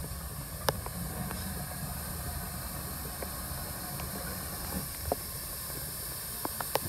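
Steady hiss of heavy rain with scattered sharp drips, over a low rumble as GWR large prairie tank locomotive 5199 rolls slowly into the platform.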